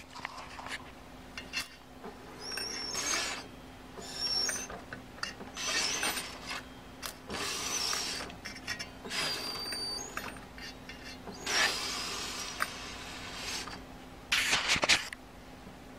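2-inch quadruplex videotape being wound by hand onto an aluminium reel: a series of scraping, rubbing swishes about a second long each as the reel is turned, some carrying short high squeaks of the tape dragging past the guide post.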